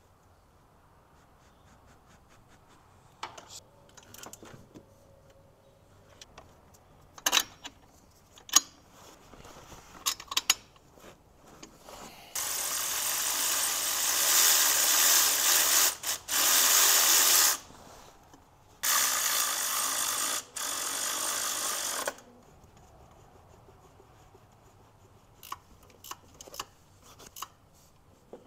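Cordless electric ratchet running on a bolt in a car's engine bay, in four runs of one to four seconds each, between about 12 and 22 seconds in. Before that, scattered clicks and knocks of tools and parts being handled.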